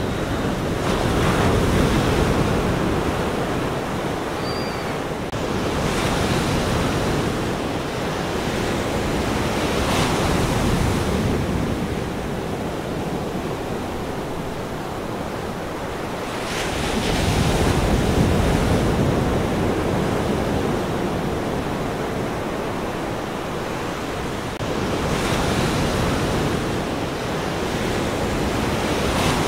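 Ocean surf: waves breaking and washing in, a steady rush that swells and ebbs every few seconds.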